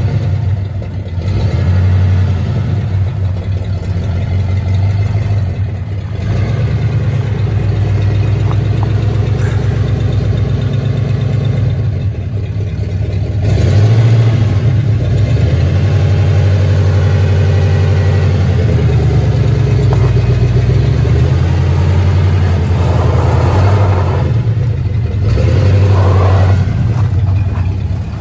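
Freshly rebuilt Ford 360 FE V8 of a Dentside pickup running under way, its engine note stepping up and down several times as the revs change.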